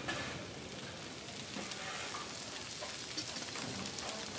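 Food frying in a pan, a steady even sizzle, with a few faint light clicks.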